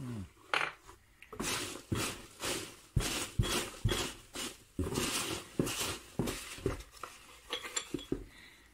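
A hand rummaging through a box of foam packing peanuts: a rapid, irregular series of rustling, crunching scrapes with light clinks from a glass jar among them.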